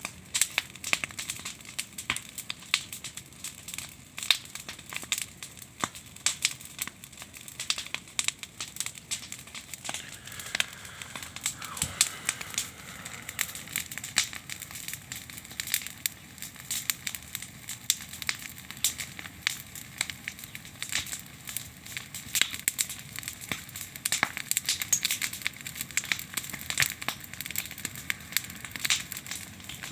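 Campfire of firewood and branches crackling, a dense irregular run of sharp snaps and pops over a light hiss.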